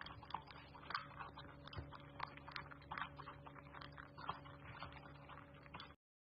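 Shiba Inu eating dry kibble from a bowl: faint, quick, irregular crunching and clicks of the pieces against the bowl, several a second, cutting off suddenly near the end.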